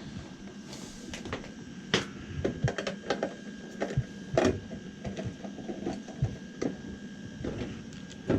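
Irregular clicks, taps and small knocks of hand tools and metal parts being handled during boiler wiring work, over a faint steady hum.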